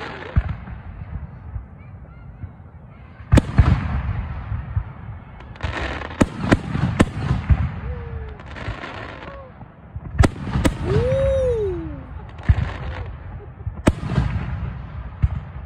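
Aerial firework shells bursting overhead: a series of sharp bangs, some in quick pairs, each followed by a rumbling tail.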